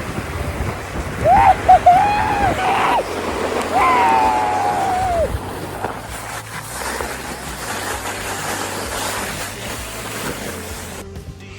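A volcano board sliding fast down loose volcanic gravel, a steady rushing scrape mixed with wind. About a second in and again about four seconds in, a rider gives two long whooping yells.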